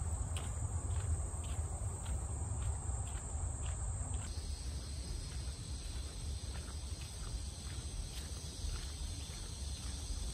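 Footsteps on a dirt woodland path, about two steps a second, under a steady high buzzing of insects. The insect buzz changes pitch about four seconds in, and a low rumble runs beneath.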